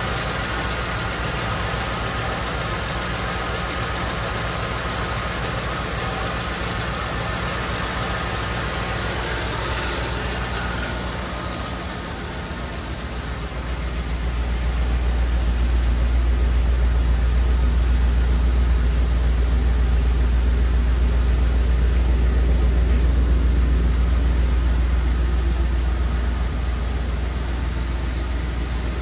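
1989 Dodge Ram 100's 5.2-litre V8 idling steadily. About halfway through, a louder, deeper exhaust rumble takes over, easing a little near the end.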